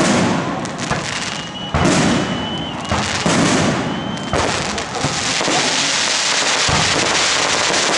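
Fireworks display: aerial shells bursting with sharp booms about a second apart, a thin high whistle sounding between some of them. From about five seconds in, the bursts give way to a dense, continuous crackling of crackling stars.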